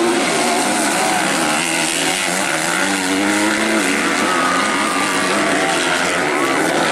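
250cc motocross bikes racing, their engines revving up and down with a pitch that keeps rising and falling, and a higher engine whine joining in the second half.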